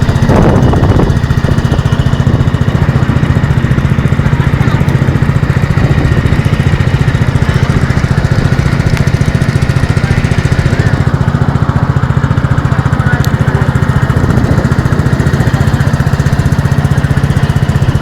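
A small engine running steadily at an even speed, loud and close, with no change in pitch.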